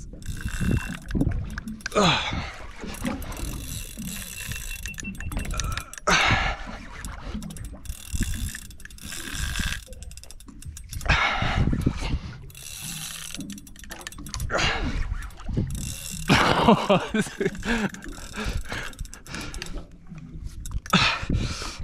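Spinning fishing reel being cranked in bursts under the load of a heavy fish, its gears and drag ticking and ratcheting.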